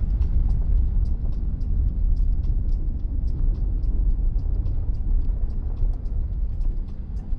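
Steady low rumble of a car being driven: engine and road noise, with faint light ticks and rattles through it.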